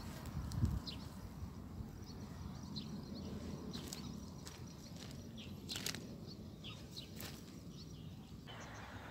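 Outdoor ambience: a low steady rumble with scattered short bird chirps and a few light clicks. A soft thump comes about half a second in.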